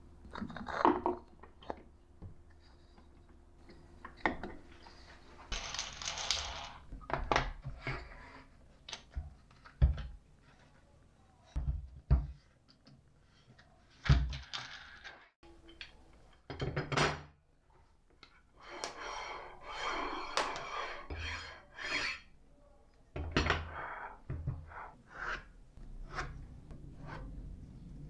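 Small wooden and metal workshop parts being handled and set down on a workbench: scattered knocks and thunks, with a couple of longer stretches of rubbing noise around six seconds in and again around twenty seconds.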